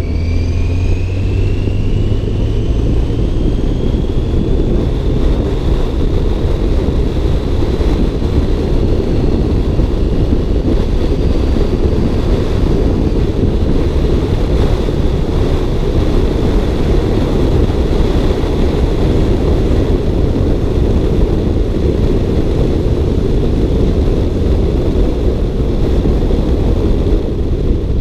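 A car driving, with a steady low engine and road rumble. A thin whine rises in pitch over the first five or six seconds and then holds steady.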